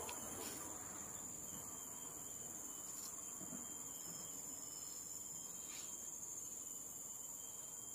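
Faint, steady, high-pitched chorus of insects, with a few faint clicks.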